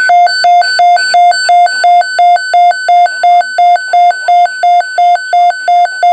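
Loud electronic two-tone alert tone in a NOAA Weather Radio tornado watch broadcast, alternating steadily between two pitches about three times a second.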